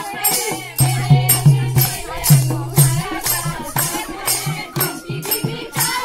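Women singing a Holi folk song together, kept in time by a steady drum beat of about three strokes a second and sharp rhythmic hand-claps.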